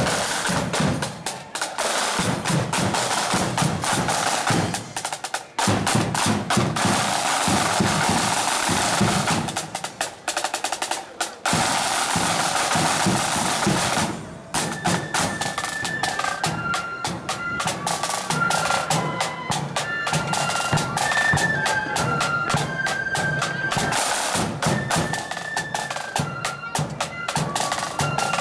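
Marching band snare drums playing rapid rolls and rhythms over a bass drum. About halfway through there is a brief break, then a high wind-instrument melody comes in over the drumming.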